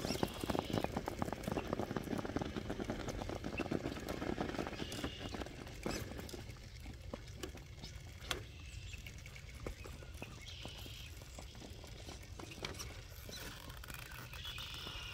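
Tyres of a Traxxas TRX4 RC crawler scrabbling and crunching on rough rock and grit as it climbs, a dense crackle for the first six seconds or so, then sparser clicks and scrapes.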